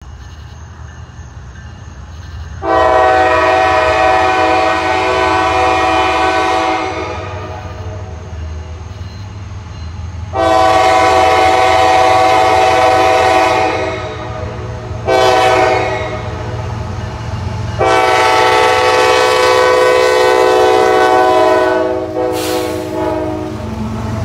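CSX freight locomotive blowing its air horn in the grade-crossing pattern, long, long, short, long, the standard warning for a road crossing ahead. Beneath the horn runs the low rumble of the approaching diesel engines.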